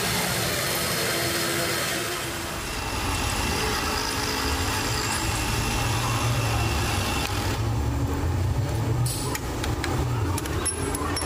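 Metal lathe running, a steady low hum, with a higher hiss that stops about seven seconds in; a few light clicks follow near the end.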